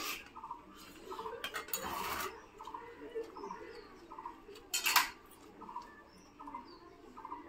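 Steel plates and a serving spoon clinking as people eat rice and curry by hand, with two louder clatters about two seconds and five seconds in. Behind them, a small bird or animal gives a short chirp, repeated steadily a little more than once a second.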